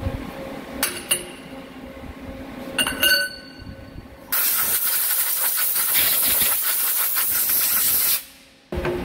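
Metal parts clinking twice with a brief ring on a steel lathe table, then a compressed-air blow gun hissing loudly and steadily for about four seconds before cutting off near the end, over a faint machine hum.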